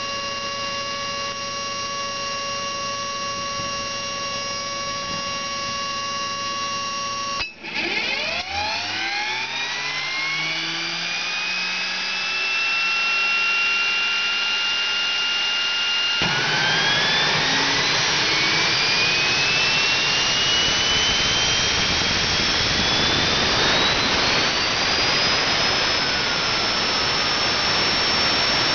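Small gas turbine engine on a test stand. First a steady whine with hum, which breaks off suddenly about a quarter of the way in. Then a whine rises from low pitch as the rotor is spun up, a loud rush of combustion noise joins about halfway through as it lights, and the whine climbs higher before levelling off near the end.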